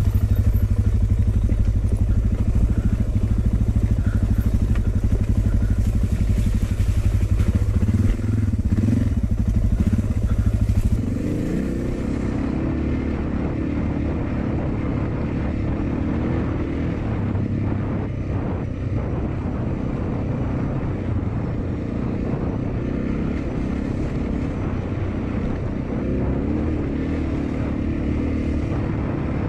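Suzuki DR650's single-cylinder four-stroke engine running as the motorcycle is ridden: a steady low drone with a brief rise in pitch about eight seconds in. After a cut at about eleven seconds it becomes a quieter, wavering, higher engine note with wind.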